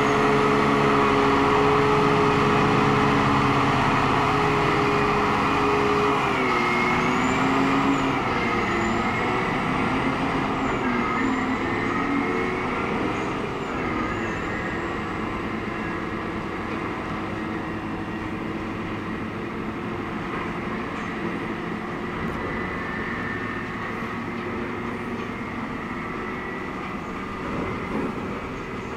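Caterpillar 777D haul truck's V8 diesel engine running as the truck drives away, with a high whine over the engine note. The note is steady at first, shifts in pitch several times between about seven and eleven seconds in, then fades gradually as the truck moves off.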